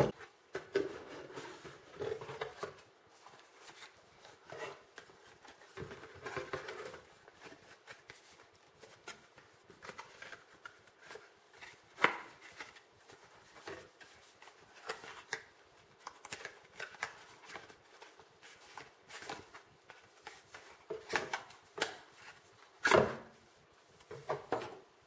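Cardboard packaging being handled: box flaps and inserts rustling and bending, with scattered taps and knocks as a pop filter and shock mount are worked out of the box. One sharp knock comes about halfway through, and a louder one near the end.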